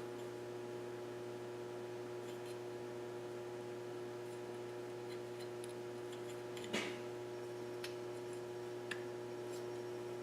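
Steady electrical hum with a few light clicks, one louder click about two-thirds of the way in.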